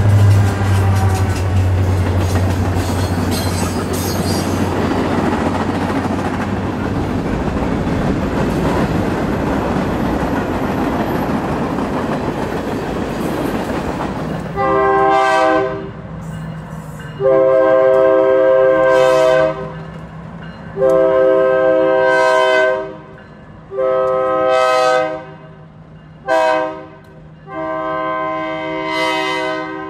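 Diesel freight train passing, its locomotives' engines running with a steady low tone and the cars rumbling over the rails. After about 14 s a multi-chime locomotive air horn takes over, sounding long blasts with one short blast near the end as the train approaches a road crossing.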